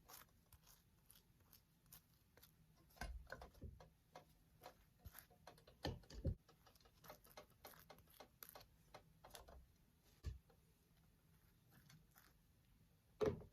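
Near silence, with faint scattered clicks and a few soft knocks about 3, 6 and 10 seconds in.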